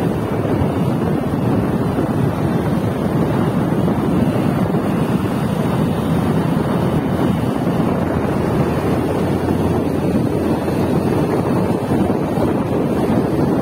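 Steady wind rushing over the microphone of a phone carried on a moving motorbike, loud and unbroken.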